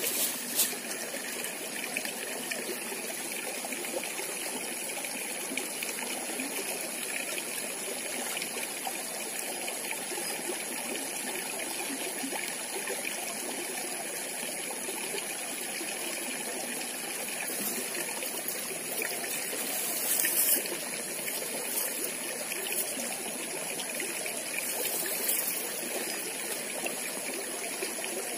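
Shallow stream flowing and trickling steadily over stones, with a few soft clicks now and then.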